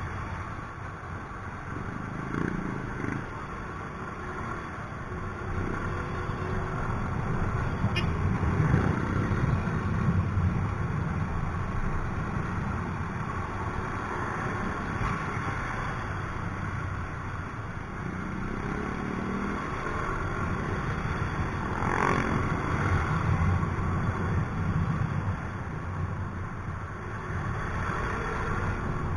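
Yamaha Mio i 125 scooter's small single-cylinder engine running under way in slow city traffic, mixed with steady road and wind noise and the engines of cars, trucks and other motorcycles around it. The sound rises and falls a little with no sharp breaks.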